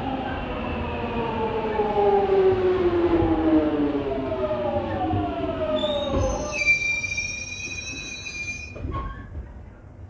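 London Underground Jubilee line 1996-stock train braking into a station: its motor whine falls steadily in pitch as it slows. About two-thirds of the way through, a high steady squeal sets in as it comes to a stop, then fades.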